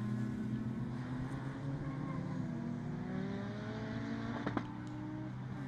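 Engines of several racing saloon cars running together, a few of them climbing slowly in pitch as they accelerate. A brief click about four and a half seconds in.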